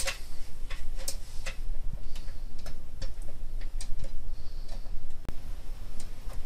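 Irregular small clicks and taps, about one or two a second, of a PCIe x1 expansion card and its metal bracket knocking against the computer case and slot as it is lined up and pushed in. A low steady hum sits underneath.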